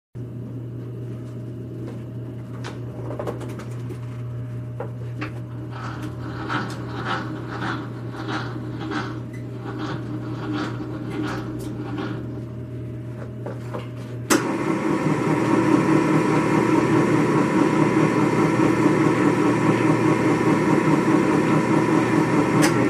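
Hobart H600 60-quart commercial mixer: regular clicking, about two a second, over a low steady hum while the bowl is cranked up to the whip, then about 14 seconds in the mixer switches on with a sudden jump into a loud, steady motor and gear drone.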